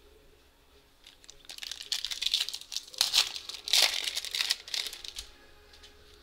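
A foil hockey card pack wrapper being torn open and crinkled by hand, a dense crackling that starts about a second in and stops a little before the end.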